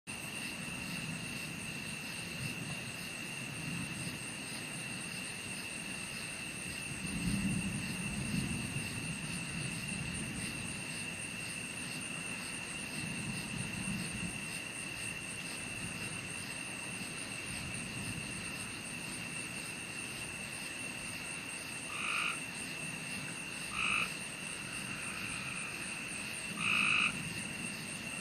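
A steady chorus of frogs calling, with four louder, separate croaks near the end. Low rumbles of distant thunder swell in the background, most strongly about seven and thirteen seconds in.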